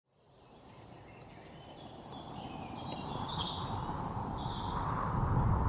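Birds chirping in short, high, falling calls over a low rumble. The sound fades in from silence at the start, and the rumble grows louder toward the end.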